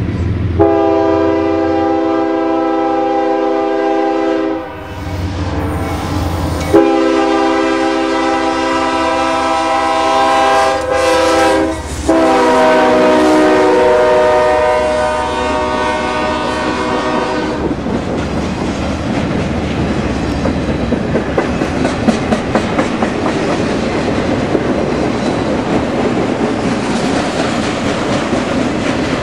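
CSX freight locomotive's air horn sounding three long blasts, each a chord of several tones, the pitch dropping during the third as the locomotive passes. Then the intermodal train's container well cars roll by, the wheels clicking in a steady rhythm over the rail joints.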